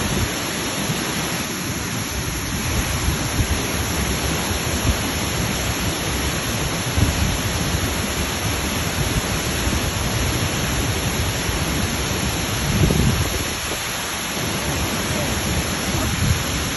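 Waterfall: a steady roar of falling water, with low rumbles now and then, the loudest about 13 seconds in.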